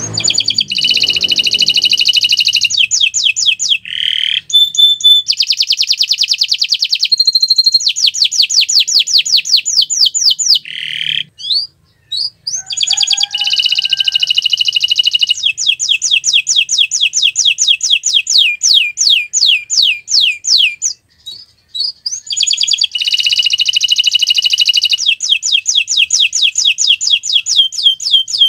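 Domestic canary singing loud, rapid trills and rolls of fast repeated notes. The song comes in three long phrases with brief pauses about 11 and 21 seconds in.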